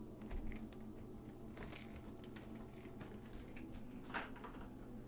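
Faint scattered clicks and rustles of a faucet's cardboard box and plastic packing straps being handled, over a steady low hum.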